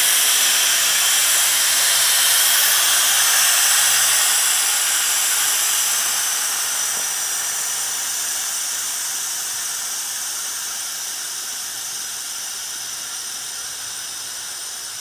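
In-ground vehicle lift being lowered, giving off a loud steady hiss that fades slowly as it comes down.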